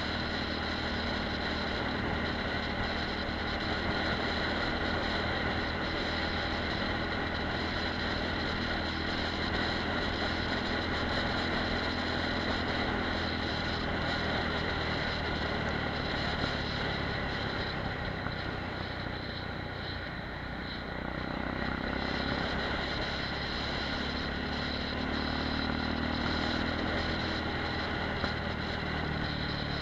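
Apollo RX250 supermoto's engine running at road speed under a steady rush of wind and road noise. It eases off about two-thirds of the way in, then picks up again.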